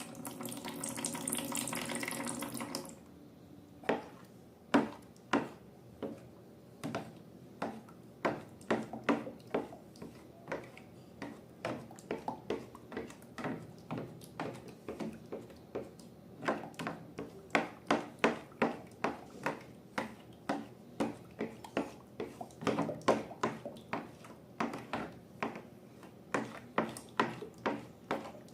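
A short pitched squeal for about three seconds at the start. Then slime is stirred and squished: many wet, sticky clicks and pops, several a second and uneven.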